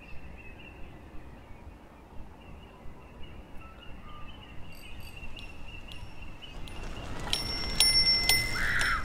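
Faint, even outdoor rumble, then a bicycle coming close on a dirt track, its bell rung several times from about seven seconds in, the rings overlapping and sustained.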